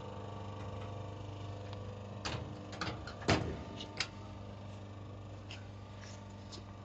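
A few short clicks and knocks from a foot pedal's plug connector being handled and screwed onto its port on a crimping machine, over a steady low hum.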